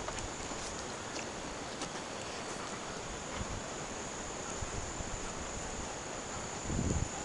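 Outdoor ambience: a steady high-pitched insect drone over a constant rustling hiss, with a short low rumble on the microphone near the end.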